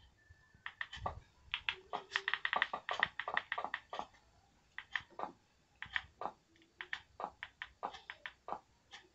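A run of quick, sharp clicks, several a second and densest about two to four seconds in: the buttons of a TV remote control being pressed repeatedly to scroll through a menu.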